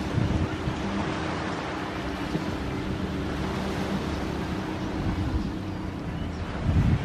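Wind buffeting the microphone in gusts, strongest just after the start and again near the end, over a steady rushing of waves, with a faint low hum underneath.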